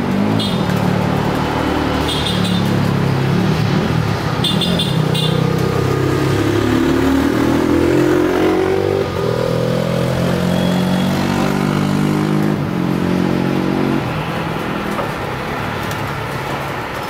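Motor vehicle engines running and revving, one climbing steadily in pitch for a few seconds midway, then dropping back, with a few short high chirps in the first five seconds.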